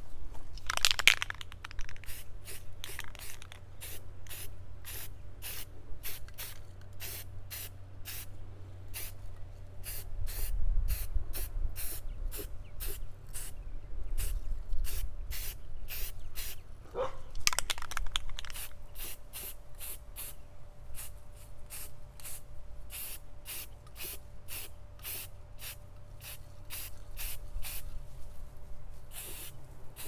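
Aerosol spray-paint can spraying in many short hissing bursts, two or three a second, as the nozzle is pressed and released over and over.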